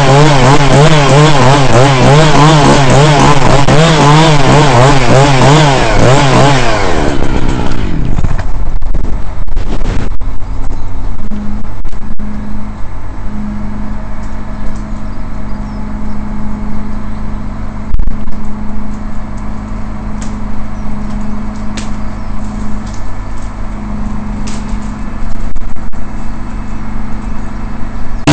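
Petrol chainsaw cutting into a dead horse chestnut limb at full throttle, its pitch wavering under load. About seven seconds in the revs fall away and it settles to a steady idle for the rest, with occasional clicks and knocks.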